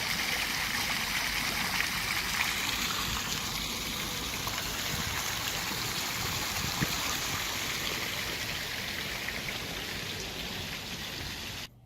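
Steady rush of running, splashing water that cuts off suddenly near the end.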